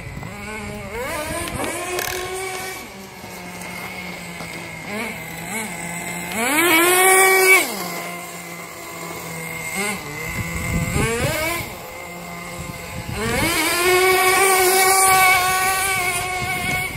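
Radio-controlled drift car's motor, speeding up in rising whines and holding at speed three times: briefly about a second in, loudest about six to seven seconds in, and for a longer run from about thirteen seconds in until near the end.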